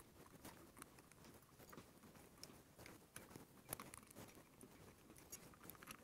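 Faint, irregular small clicks and ticks of a T20 screwdriver turning out the little screws from the terminal bus bars on top of LiFePO4 battery cells.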